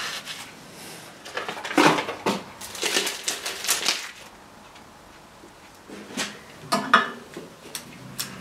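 Hands handling parts and tools: irregular clinks, clatters and rustles in two bursts, one starting about a second and a half in and another about six seconds in.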